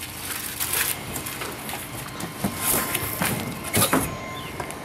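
Cardboard box being opened by hand: rustling and scraping of the cardboard flaps, with a few sharper, louder handling sounds about one, three and four seconds in.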